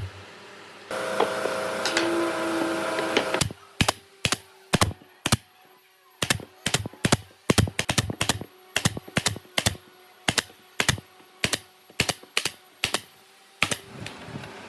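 A brief steady machine sound with a few held tones cuts off, followed by a long run of sharp taps or clicks, about two a second.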